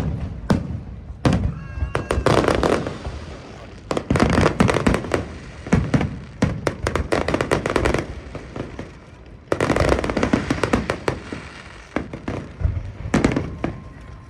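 Fireworks display: aerial shells bursting in rapid barrages of sharp booms and crackling, with a brief lull about two-thirds of the way through before another barrage.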